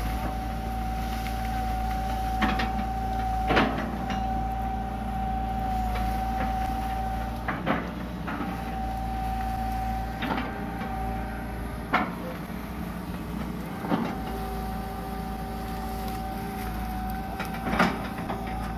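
Hitachi EX120 long-arm excavator at work: its diesel engine running steadily under a high, even whine that comes and goes in stretches of several seconds as the hydraulics work. Sharp knocks and clanks from the arm and bucket every couple of seconds as it tears out banana plants.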